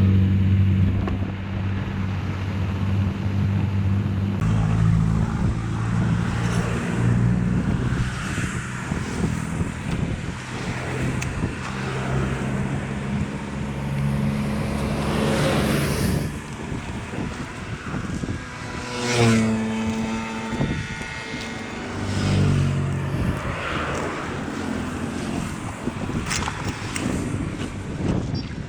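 An engine running, its low tone stepping up and down as the load changes, with a brief rising and falling whine about two-thirds of the way through.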